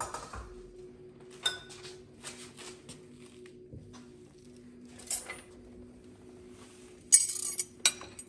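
Glassware clinking as glasses and a glass ice bucket are set down on a counter, with one ringing glass clink about a second and a half in. A loud clatter of ice cubes comes near the end.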